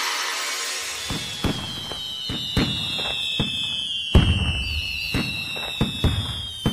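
Fireworks bursting: a string of about a dozen sharp bangs with crackle, under a long high whistle that slowly falls in pitch.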